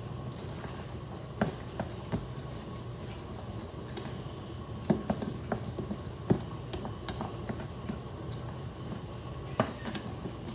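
A spoon stirring and scraping a thick ricotta and spinach filling in a stainless steel mixing bowl, with about six short clinks of the spoon against the bowl over a steady low hum.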